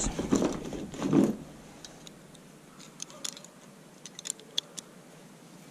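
Small metal clicks and clinks of Cleco sheet-metal fasteners being handled and loaded into Cleco pliers, with a scattering of sharp ticks in the second half.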